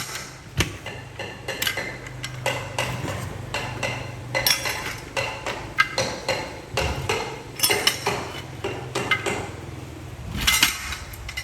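Metal tools clanking and tapping against metal in irregular knocks and clinks, over a low steady hum, during tractor tyre-changing work.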